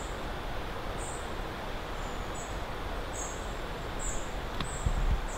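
A small bird's high, thin calls, short notes that dip slightly in pitch, repeating about every half second to a second over a steady woodland hiss. A low rumble rises near the end.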